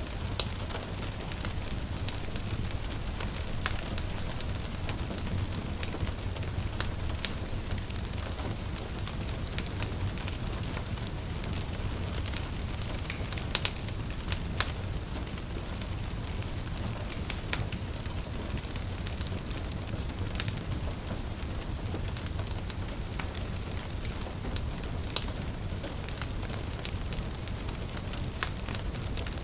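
Wood fire crackling in a fireplace, with irregular sharp pops, a few louder ones midway and near the end, over a steady low rumble and a soft hiss of gentle rain.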